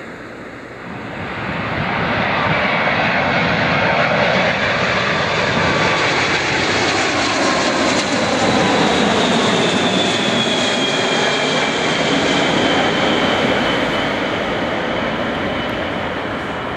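Boeing 747-400 with four Rolls-Royce RB211 turbofans passing low on final approach to land. Loud jet noise builds about a second in, carrying a high whine that slowly falls in pitch as the aircraft goes by, then eases slightly near the end.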